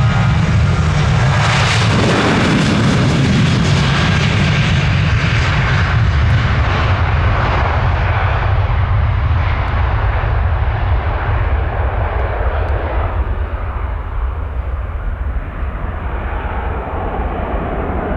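Jet airliner engines running loud, a deep rumble with a hiss on top. The hiss fades over the second half as the aircraft draws away.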